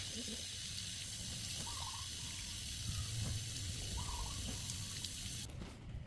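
Water running from a garden hose and splashing over an apple being rubbed clean by hand, a steady hiss that cuts off abruptly about five and a half seconds in.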